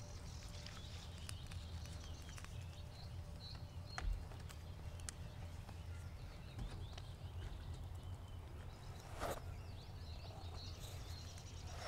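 Quiet outdoor ambience by the water: a steady low rumble, faint bird chirps, and a few sharp knocks, the loudest about four seconds in.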